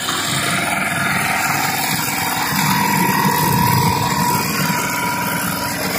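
Small engine running steadily at a constant speed, the pump engine working at the pond during the catfish harvest.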